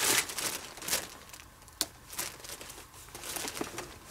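Clear plastic zip-top bag crinkling as it is handled and opened, loudest in the first second, then quieter rustling with one sharp click just under two seconds in.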